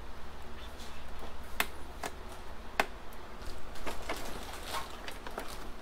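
Scattered light clicks and knocks of a plastic model tank being handled and set against its box, about a dozen irregular taps over a faint low hum.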